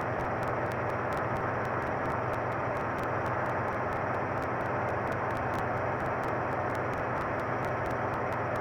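Steady background hiss and room noise picked up by a phone's microphone, with a faint rapid ticking, about six ticks a second, running through it.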